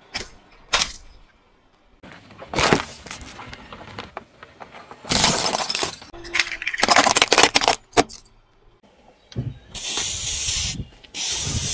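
A car tyre rolling onto and crushing a series of objects, each a separate burst of crunching: first soft jelly snack packs, then a bundle of wooden toothpicks. Near the end, WD-40 aerosol cans are crushed and spray out in two bursts of steady hiss.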